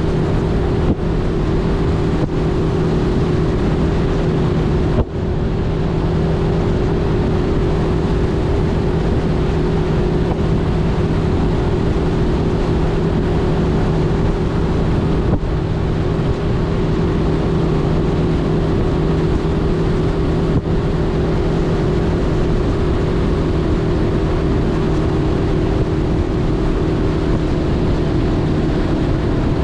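Mercury outboard motor running steadily at cruising speed, a constant drone, with wind rushing over the microphone.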